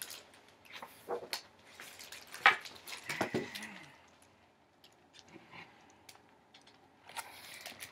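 Knocks, taps and paper rustles from a large picture book being handled and held up, with a sharp knock about two and a half seconds in and a page rustling near the end.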